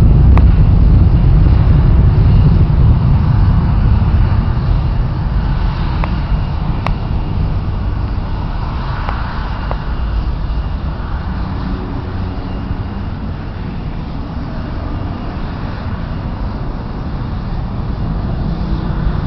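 Boeing 727-100 jet engines at takeoff thrust: a loud, low rumble that slowly fades as the jet rolls down the runway, lifts off and climbs away, swelling slightly again near the end.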